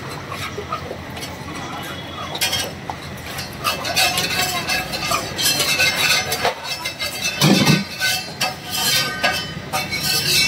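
Metal spatula scraping and clinking against a large flat tawa griddle while thick pav bhaji is stirred and spread, in quick irregular strokes that grow busier about four seconds in, over a steady hum of background noise.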